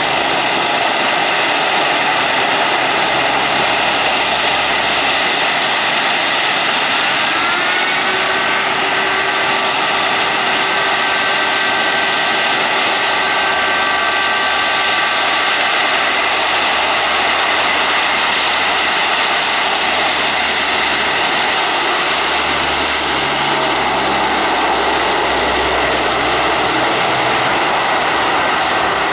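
Lockheed C-130H-30 Hercules's four Allison T56 turboprop engines running loud and steady as the aircraft taxis on the runway toward takeoff. About seven seconds in, a whine rises in pitch and then holds. The high turbine-and-propeller hiss grows in the last third as the plane passes close by.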